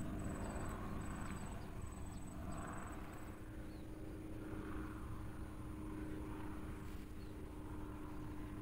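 Steady low drone of a distant motor, with a high insect trill pulsing in short bursts for the first few seconds.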